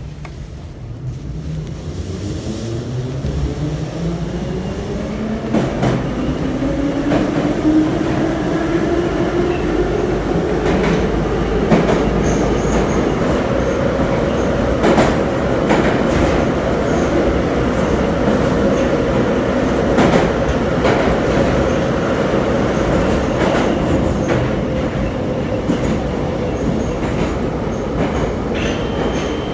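Soviet-built Em-series (81-501/502/503) metro train accelerating away from a station. The whine of its traction motors rises steadily in pitch for the first half, then holds at cruising speed in the tunnel and eases a little near the end. Occasional clicks of the wheels over rail joints sound through it, and a thin high squeal starts just before the end.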